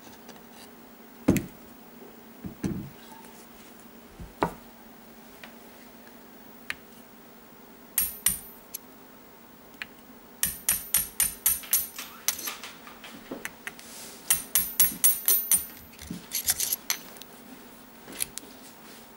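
A few dull knocks as the Weihrauch HW85/HW95 action is handled out of its wooden stock. Then rapid runs of sharp metal-on-metal clicks and taps, about five a second, as a pin punch works the trigger-housing pins out of the steel action.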